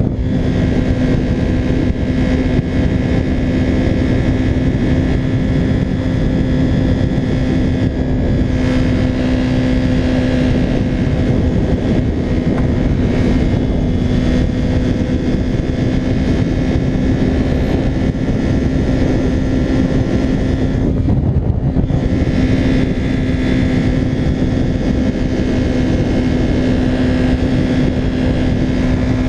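Motorcycle engine running at a steady cruise with a constant hum, under heavy wind rush on a helmet-mounted camera. The sound dips briefly about two-thirds of the way through.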